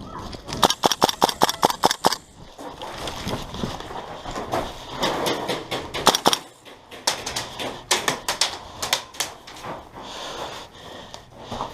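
Airsoft guns firing BBs: a rapid string of sharp clicking shots in the first two seconds, and more shots about seven to nine seconds in.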